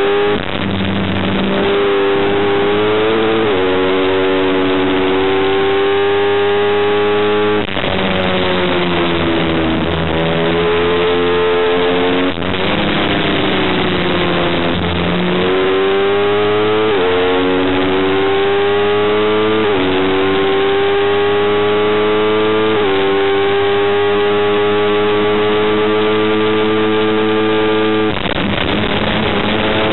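Motorcycle engine heard from on board at racing speed, the revs climbing and then stepping down with each gear change. Around 8 s, 12.5 s and 28 s the throttle shuts and the pitch falls as the bike slows for corners, then climbs again.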